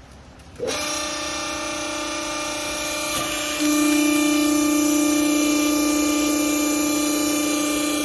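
Vertical hydraulic baler's pump motor switching on about half a second in and running with a steady hum, stepping louder about halfway through as the press platen lifts off the strapped bale.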